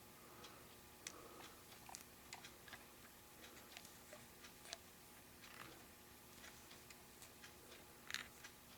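Near silence with faint, irregular small clicks and taps from hands working at a fly-tying vise, wrapping twisted peacock herl onto the hook with the thread bobbin. A slightly louder click and rustle comes about eight seconds in.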